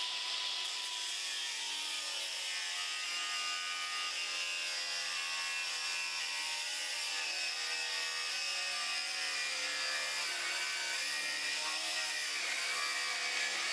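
Angle grinder running at full speed with a thin cutting disc, slicing the end off a metal bar: a steady whine with a grinding hiss that holds even throughout the cut.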